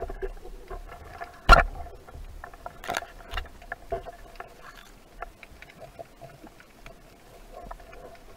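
Scattered sharp clicks and knocks over a faint steady hum, the loudest about a second and a half in and another about three seconds in.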